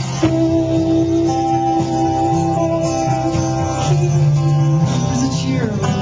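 Rock band playing live: electric and acoustic guitars with held, sustained notes, over a steady low bass line.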